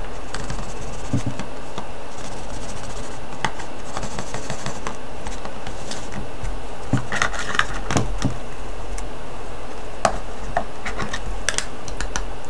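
Scattered light clicks, taps and scratchy rustling from hands handling a small plastic tub of fine glitter powder and flakes, with a cluster of taps near the end, over a steady low hum.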